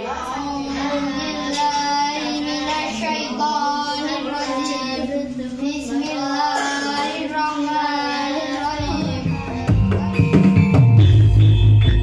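A child's voice singing a long, wavering melodic line with drawn-out notes. About nine seconds in, louder music with heavy drumming takes over.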